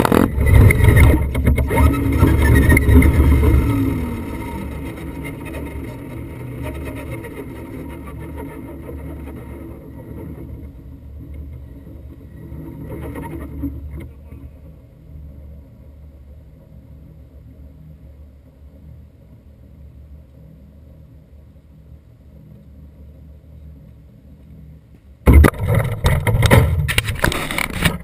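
RC truck and its GoPro tumbling and scraping over asphalt in a crash, loud for the first few seconds. It fades to a low steady outdoor background while the camera lies on the ground. About 25 seconds in come sudden loud knocks and rubbing as a hand grabs the camera.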